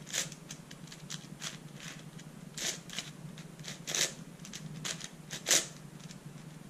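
Layers of a 4x6x8 shapeshifter twisty puzzle (a Meilong 8x8 with 3D-printed extensions sanded smooth) turned quickly in the hands: a run of short plastic clicks and clacks, three of them louder. The sanded extensions give no scratchy sound, so the turning sounds like a regular 8x8 cube.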